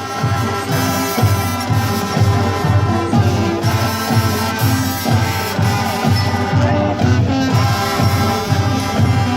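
Marching band playing: brass instruments holding sustained chords over a steady drum beat about twice a second.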